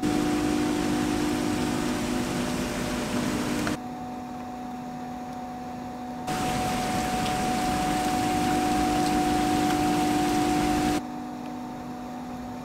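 Steady rushing of water streaming off the raised caisson gate of the Anderton Boat Lift, with rain and a low steady hum. The noise drops abruptly about four seconds in, comes back louder a couple of seconds later, and drops again near the end.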